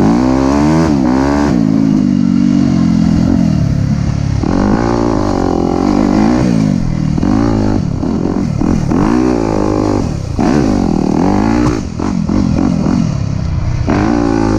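Yamaha YZ250F dirt bike's four-stroke single-cylinder engine, heard up close from on the bike, revving up and dropping back again and again under throttle, rising and falling in pitch every second or two.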